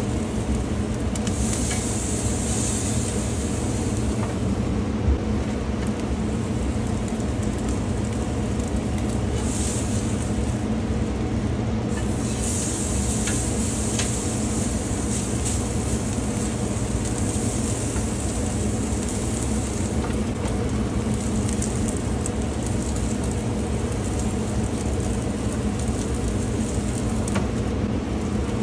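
Steak sizzling on a charcoal grill grate, the hiss swelling and fading at times, with scattered crackles over a steady low rumble.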